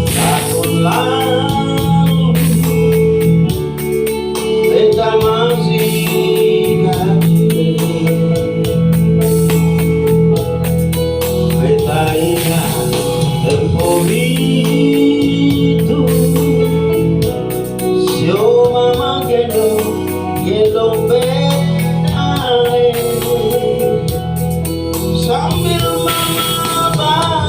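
Music: a singer's melody over held keyboard chords in the style of an electronic organ.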